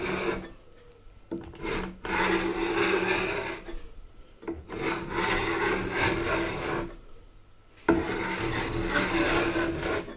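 Old varnish being worked off a wooden table top by hand, rubbing and scraping across the wood. It comes in long strokes of about two seconds each with short pauses between, and the varnish is coming off easily.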